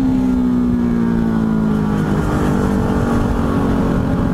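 KTM RC390's single-cylinder engine running at a gentle, steady cruise, its note easing slightly about halfway through, over a low rumble of wind noise.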